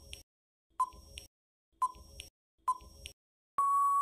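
Quiz countdown timer sound effect: a short beep about once a second, each followed by a faint tick, then a longer steady beep near the end as time runs out.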